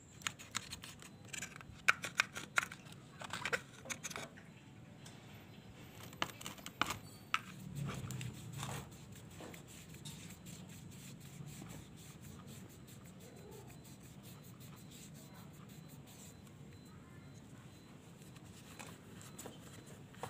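A removed throttle body being handled and cleaned by hand: a run of small sharp clicks and knocks of the metal housing over a plastic tub, then, from about eight seconds in, the faint steady rustle of a cloth rag rubbing the housing.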